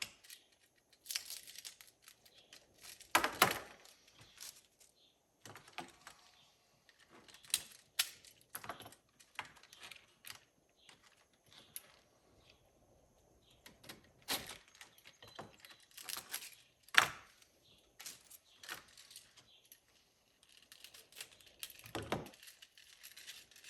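Hands handling small metal gauge fittings and plastic packaging: scattered clicks, light knocks and crinkling rustles, with a few sharper knocks spread through.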